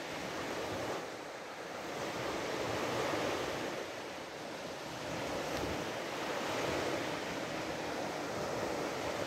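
Ocean surf washing on a beach: a steady rushing hiss that swells and eases over a few seconds.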